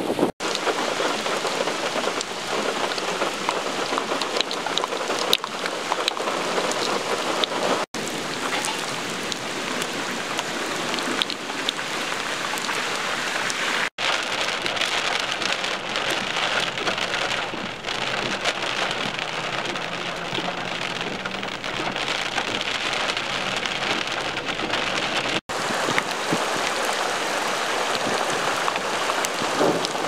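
Heavy thunderstorm rain falling on wet pavement and grass, a steady dense hiss. It cuts out for an instant four times.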